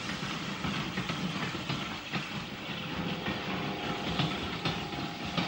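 Narrow-gauge goods train rolling past, a steady rumble with irregular clicks and clanks of wheels on rail joints and couplings. A faint steady tone joins about three seconds in.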